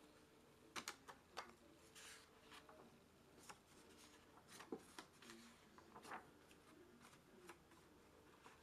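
Faint rustling and light ticks of a sketchbook's paper pages being handled and turned.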